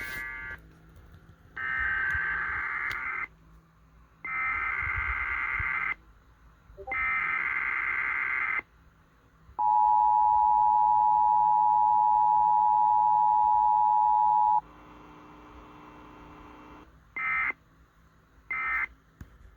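Emergency Alert System tones played over a radio broadcast. The digital header sounds as three buzzy data bursts of about a second and a half each, followed by the steady two-tone attention signal held for about five seconds. Near the end come three short bursts, the end-of-message code.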